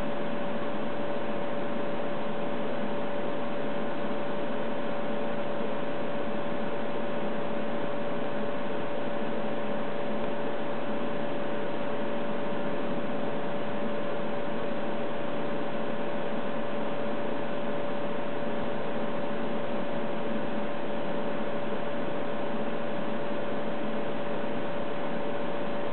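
Steady hum and hiss from an HP 53310A modulation domain analyzer running its self-test, with one constant mid-pitched tone over it and no change in level throughout.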